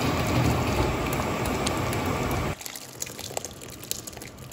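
A thick, creamy tomato sauce bubbling in a pan on the stove: a loud, steady, dense noise. About two and a half seconds in it cuts to quieter wet slops and small clicks as the sauce is poured over cooked macaroni in a metal pot.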